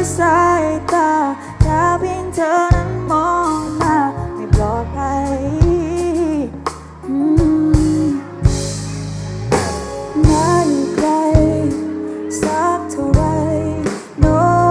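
A pop song with a sung vocal melody over bass and regular drum beats.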